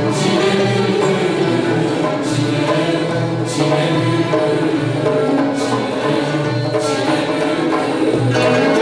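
Turkish classical music ensemble in the Hüseyni makam: a mixed choir singing together, accompanied by kanun and ud.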